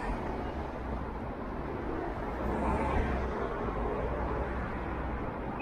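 City street ambience: a steady wash of road traffic, with a vehicle passing a little louder about halfway through.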